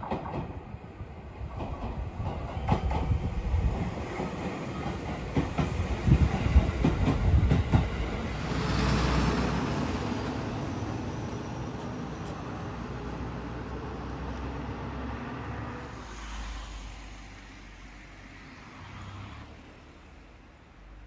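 A train passing, its wheels clacking over the rail joints as it draws near; the noise is loudest about nine seconds in, then slowly fades away.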